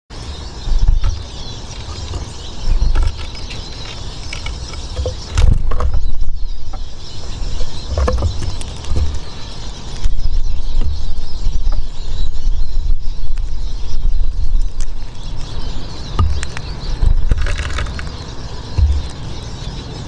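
Finches at a wooden bird feeder: faint high chirps and a few sharp clicks and knocks, over a heavy low rumble that surges and falls irregularly.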